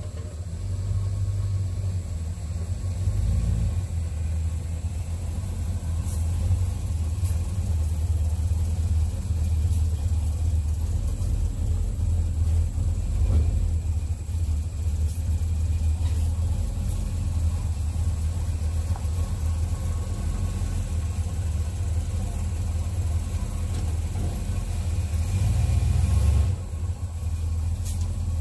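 1981 Chevy C10 pickup's engine running steadily with a deep, low note as the truck rolls slowly along, with a brief dip in the sound near the end.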